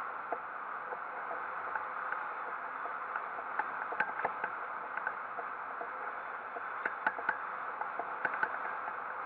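Steady rush of wind from the airflow over a hang glider in flight, heard on a camera mounted on the glider. Small clicks and ticks come through it, in clusters about four seconds in and again around seven and eight seconds in.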